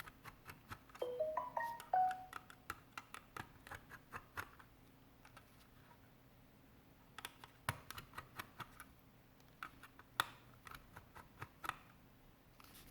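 Scattered small clicks and taps of tweezers and tools on the plastic parts of a gaming mouse opened up for a scroll-wheel encoder replacement, with a few short notes stepping up in pitch about a second in.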